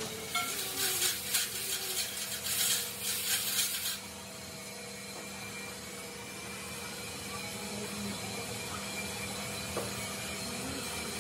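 Irregular rubbing and scraping on the chrome rod of an excavator hydraulic cylinder, stopping suddenly about four seconds in. After that there is a steady low hum.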